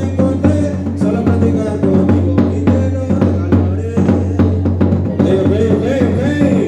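Band music with a steady drum-kit beat, a strong sustained bass and a melody line that bends and wavers in pitch near the end.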